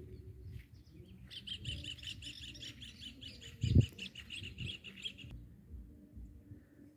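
A bird calling in a fast run of repeated high notes for about four seconds, starting about a second in. A single low thump about halfway through.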